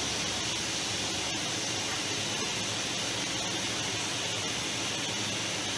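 Robot arm's pneumatic suction cup switched on: a steady hiss of compressed air through its vacuum generator, holding suction.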